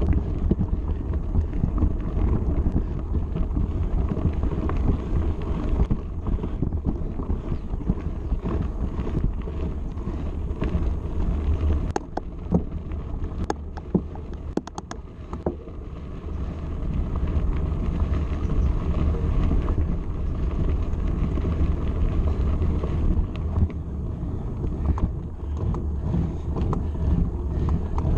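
Wind buffeting the microphone of a mountain bike rider's action camera, mixed with tyre noise as the bike climbs a loose gravel track. A few sharp clicks come between about 12 and 15 seconds in.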